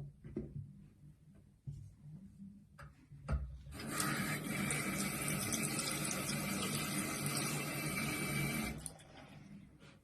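A steady rush of running water, like a tap, for about five seconds, after a few light knocks.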